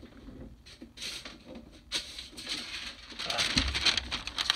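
Sheets of paper being handled and shuffled: a dry, scratchy rustling that grows from about two seconds in, with a soft bump a little after three seconds.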